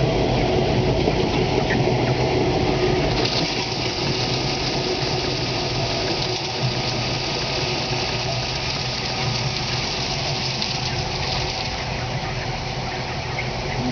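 Chicken feed hopper being filled: the steady hum of the feed-delivery machinery, with the rushing hiss of ground feed pouring from the downspout into the bin.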